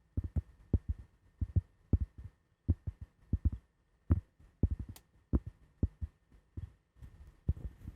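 Dull, low taps on cork and wood, about two to three a second and often in pairs, in an uneven rhythm. A soft scratching rustle begins near the end.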